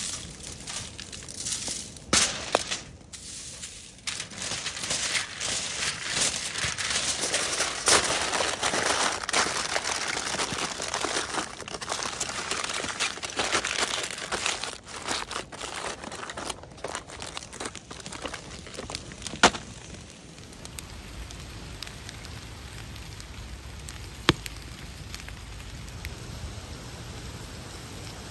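Aluminium foil crinkling and crackling as it is folded around asparagus by hand, with sharp clicks and crumples. About twenty seconds in it gives way to a quieter steady hiss.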